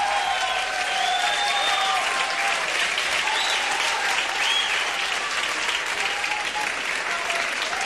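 Live concert audience applauding and cheering, with shouts and a few high whistles rising and falling over the clapping.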